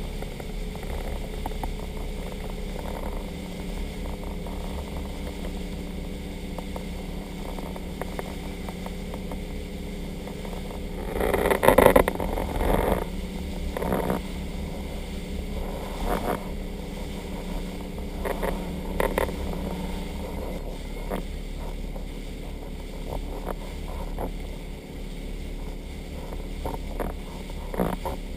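Motorboat engine running steadily at speed while towing an inflatable tube, with a rush of wind and water. A louder burst of noise comes about halfway through.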